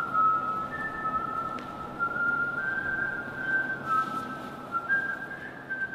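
A slow whistled tune: long held single notes stepping up and down in pitch, over a steady background hiss.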